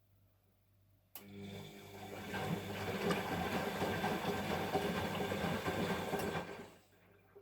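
Siemens washing machine drum turning during a rinse: the motor starts about a second in and runs steadily, tumbling the wet laundry through the water, then stops near the end.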